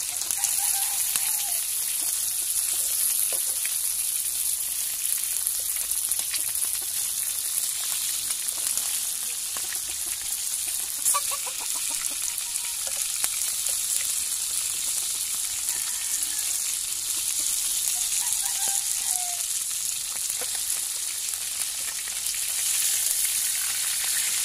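Whole fish sizzling steadily in hot oil in a wide metal wok, with now and then a click of the metal slotted spoon against the pan as the fish are turned.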